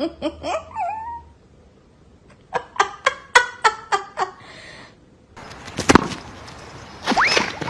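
A run of short, high-pitched calls from pets: a few calls at the start, then a quick string of about eight calls in under two seconds. A sharp thump comes near the middle, and two high calls that rise and fall come near the end.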